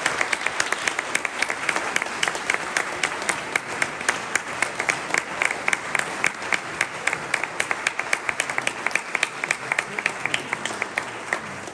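Audience applauding, a dense steady patter of many hands clapping that thins out near the end.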